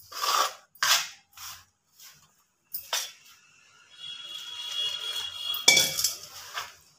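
A ladle scraping and stirring rice flour in a metal bowl in several short strokes, then hot water poured onto the flour for a couple of seconds, with a loud knock against the bowl near the end.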